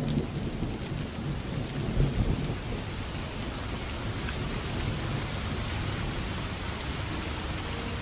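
Steady rain falling with low rolling thunder, the rumble heaviest in the first two or three seconds. A few soft piano notes come in near the end.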